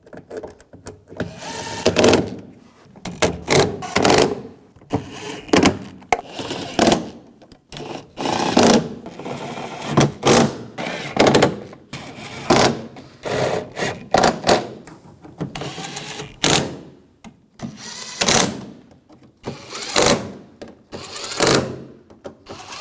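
Screws being tightened down one after another with a driver: a long series of short bursts of tool noise, more than a dozen, some with a thin high whine.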